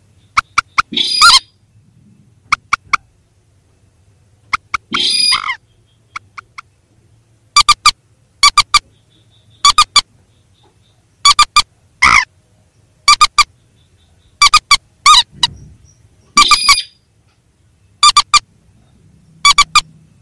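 Recorded rail calls (mandar and sintar) played as a lure for netting: short clipped calls in pairs and threes, repeating every second or two, with a few longer calls in between.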